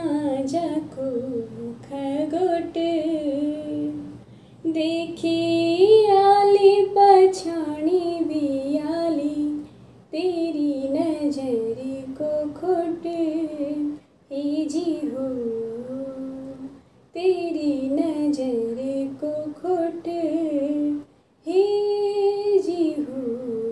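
A young woman singing a Garhwali song solo and unaccompanied, in long wavering phrases with short pauses for breath; the last phrase holds a steady note before falling away.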